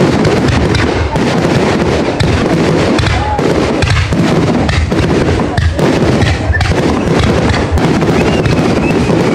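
Fireworks display going off in a dense, unbroken barrage of bangs and crackles.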